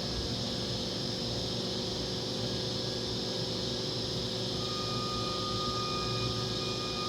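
Hurco VMX50i CNC vertical machining center running under power, a steady machine hum and hiss with constant tones. A higher, thin whine joins about four and a half seconds in.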